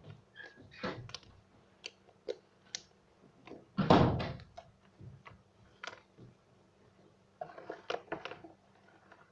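Scattered light clicks and knocks, with one louder thump about four seconds in.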